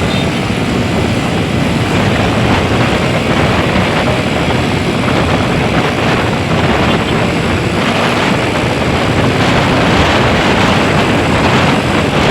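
A heavy vehicle running close by: a steady, loud engine and road noise, with no horn sounding.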